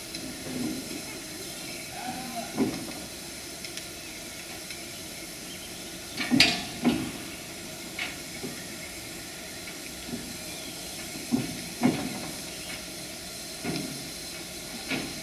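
Steam hissing steadily from a 1903 Borsig steam tank locomotive standing in steam, broken by several sharp knocks every second or two, the loudest about six seconds in.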